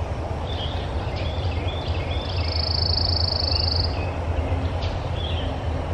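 Outdoor ambience of birds calling: scattered short high chirps, and a rapid high trill lasting about a second and a half in the middle, over a steady low hum.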